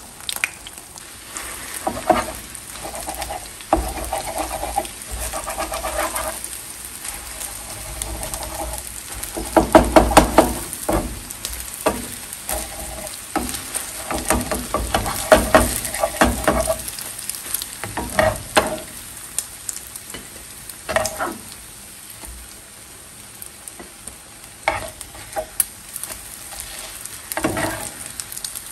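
Beaten eggs frying in plenty of hot oil in a frying pan, sizzling steadily. A plastic spatula scrapes and taps against the pan as the omelette is flipped, cut into pieces and lifted out. The scraping comes in irregular bursts, busiest about ten seconds in and again around fifteen seconds.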